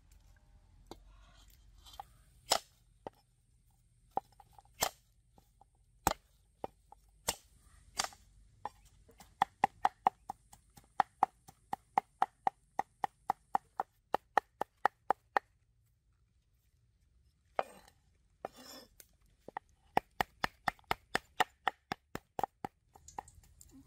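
Knife chopping food on a cutting board: a few scattered chops, then a run of quick, even chops at about four a second, a pause with two short noisier sounds, then another run of chops.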